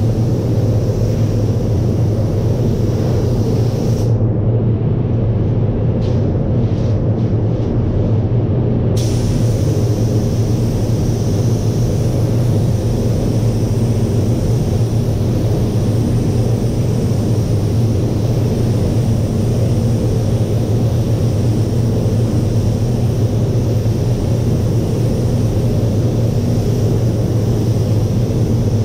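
Paint spray booth ventilation running with a steady low hum and rush of air, under the hiss of a paint spray gun spraying a car's hood. The hiss cuts out about four seconds in and comes back sharply about nine seconds in.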